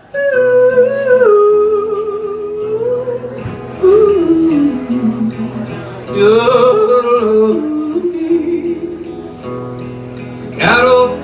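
A male singer yodelling the wordless opening of the song: long held notes that slide up and down, with guitar accompaniment underneath.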